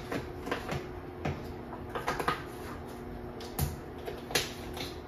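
Kitchen handling sounds: scattered light knocks and clicks of containers being set down and cupboards opened and closed, the loudest two near the end, over a faint steady hum.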